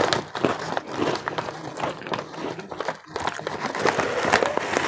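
Crinkly chip bag being handled: a dense, continuous run of crackling rustles as a hand rummages inside it.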